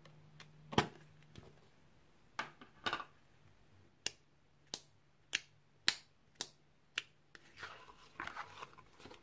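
Plastic lid popping off a slime tub, then a finger poking into thick slime in the tub, making a row of six sharp pops about every half second. Near the end, crackling squelches as the slime is pulled out of the tub.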